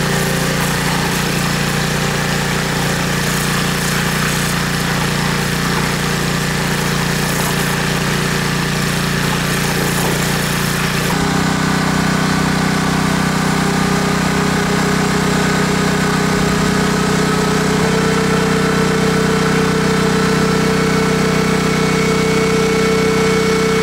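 Pressure washer running steadily while its zero-degree pencil stream cuts into clay soil. About halfway through the sound shifts and the steady whine of a wet/dry vacuum joins in as it sucks mud and water out of the hole.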